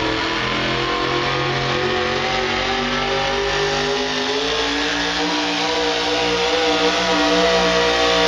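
Pickup truck engine at high revs under heavy load as it drags a weight-transfer pulling sled, its pitch gradually climbing and then holding steady near the end.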